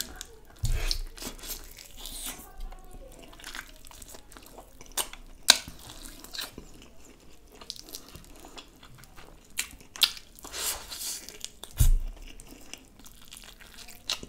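Close-miked eating: a person chewing, biting and smacking while tearing the meat of a cooked chicken leg apart by hand, in many irregular wet clicks. Two low thumps stand out, about a second in and near the end.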